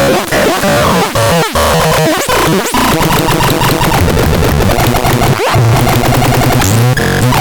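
DAZAX synthesizer playing harsh, noisy electronic sounds: rapid crackling and swooping pitch sweeps over a low buzzing drone, with one sharp downward sweep about five and a half seconds in.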